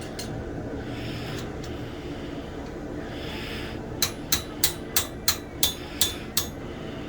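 Eight quick hammer blows on forged steel against an anvil, about three a second, each with a short metallic ring, starting about four seconds in over a steady low background noise. These are light blows adjusting the bend of a hand-forged knife.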